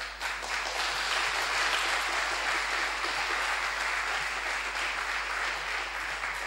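An audience applauding, a steady sound of many hands clapping.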